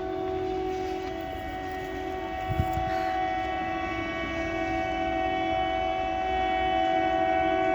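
A train horn held on one steady note over the low rumble of a passing train, growing slightly louder toward the end. A brief knock sounds about two and a half seconds in.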